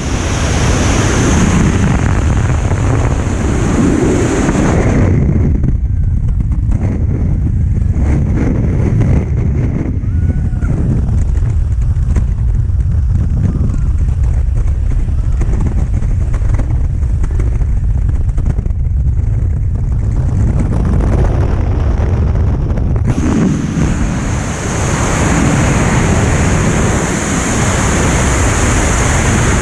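Freefall wind rushing over the camera microphone during a skydive: loud, steady buffeting noise. From about five seconds in the hiss drops away and the rush turns dull, and the full bright rush comes back a few seconds before the end.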